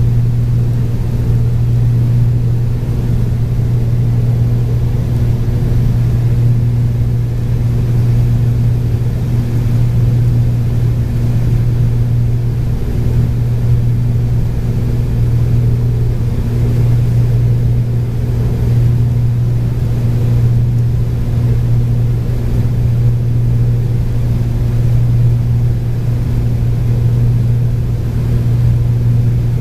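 Cabin drone of a Cessna 402's two piston engines and propellers, heard from the cockpit in flight on approach. It is a steady low hum that waxes and wanes slightly.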